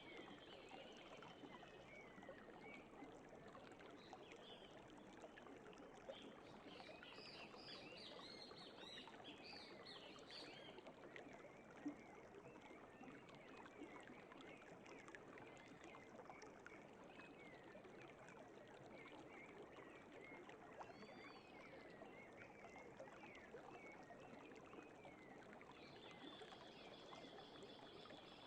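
Faint forest-stream ambience: a steady rush of flowing water with small birds chirping over it, the chirps busiest about a third of the way through.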